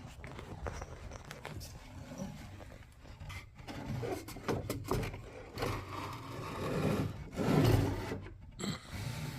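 Scraping, rubbing and light knocks as the radio chassis and its wooden mounting board are handled while the screws holding them together are taken out, with the loudest scrape about seven to eight seconds in.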